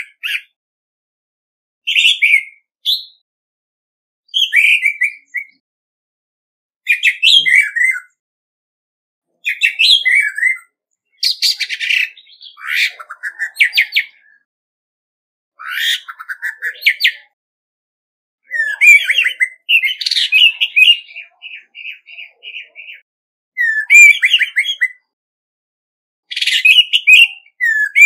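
Male orange-headed thrush singing its challenge song: short, varied whistled phrases of about a second each, separated by pauses of a second or so. Twice, around the middle and past it, the phrases run on into longer rambling strings, the second ending in a series of thinner notes.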